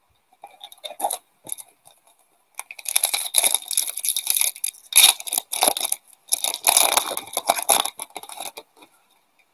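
Foil wrapper of a 1997-98 SPx hockey card pack being torn open and crinkled in the hands: a few light crackles, then about six seconds of dense crinkling with one short pause.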